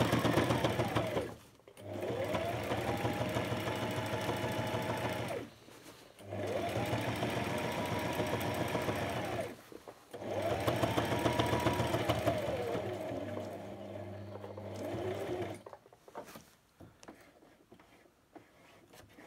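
Brother SM2700 electric sewing machine stitching through a name tape and uniform fabric in four runs, the motor speeding up and slowing again with each, and stopping about sixteen seconds in.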